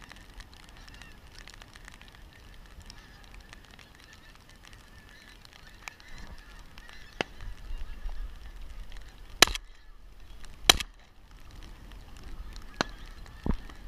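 A large flock of pink-footed geese honking as it flies over, many calls overlapping. Partway through come two loud, sharp cracks a little over a second apart.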